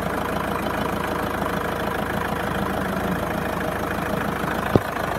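Citroen Relay van's diesel engine idling steadily from cold, heard close up in the engine bay. A single sharp click sounds near the end.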